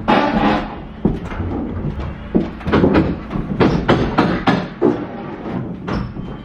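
Irregular knocks and bangs of wooden boards being struck and knocked loose in demolition work, sometimes several in quick succession.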